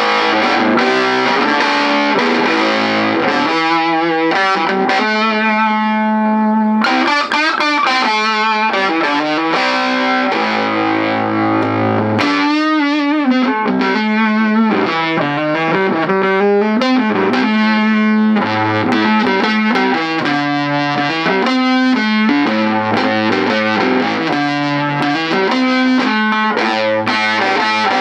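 Red Les Paul electric guitar played with no pedals straight into a Mojotone 5F1 Champ kit: a tweed, single-ended 6V6 valve amp with its stock 8-inch speaker, turned up around 10. The amp is overdriven, and the riffs and chords run without a break.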